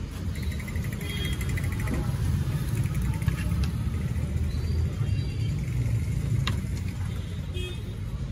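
Steady low rumble of street background noise, with a metal spoon scraping and clinking in a steel pan as filling is scooped out; one sharp click about six and a half seconds in.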